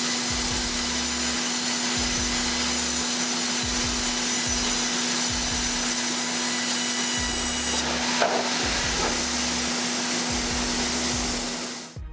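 Sawmill band saw cutting a timber cant into boards: a loud, steady sawing noise over a constant hum, with a brief knock about eight seconds in, cutting off abruptly near the end.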